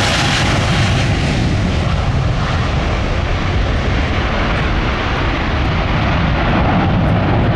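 Airbus A350 XWB twin-jet airliner flying past, its two Rolls-Royce Trent XWB turbofans giving a loud, steady jet rumble and roar; the high hiss thins a little after the first second as it goes by.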